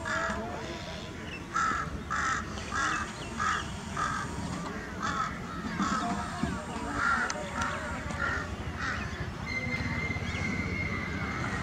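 Crows cawing over and over, a long run of short harsh calls about two a second. About three-quarters of the way in, a steady high whine joins them.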